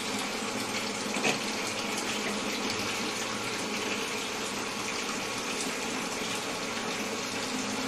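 Onion and spice masala sizzling in hot oil in a frying pan, a steady hiss, with one light knock about a second in.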